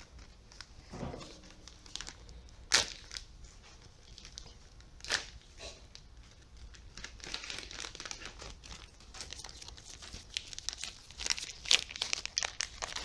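Packaging of a new lawn-mower head gasket being crinkled and torn open by hand, with a few sharp snaps and a busier stretch of crinkling in the second half.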